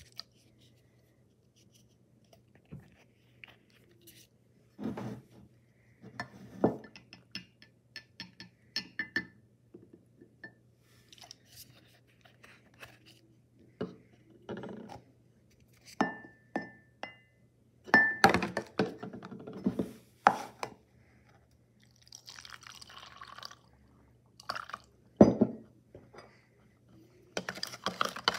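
Spoon and cups being handled: scattered clinks and taps against a ceramic mug and a glass cup, some ringing briefly. Near the end a metal spoon stirs quickly in the frosted glass cup, clicking rapidly against its sides while mixing feed.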